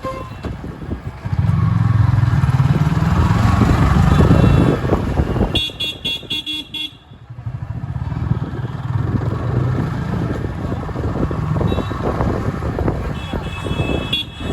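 Busy street traffic: motor vehicle engines pass with a heavy low rumble for the first few seconds, then short repeated horn toots sound about six seconds in and again near the end.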